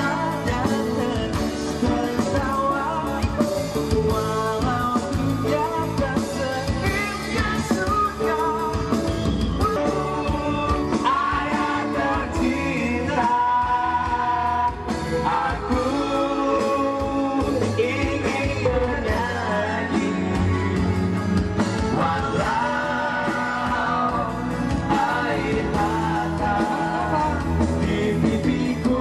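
Live rock-pop band played through a PA: male lead vocals, with more men joining in to sing, over electric guitar, acoustic guitar and keyboard.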